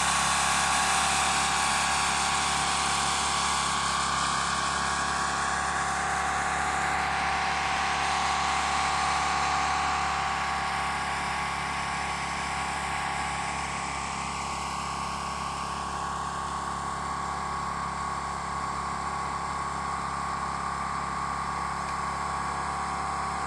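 A steady mechanical hum like an engine running, with a constant high tone over a hiss, easing off a little about ten seconds in.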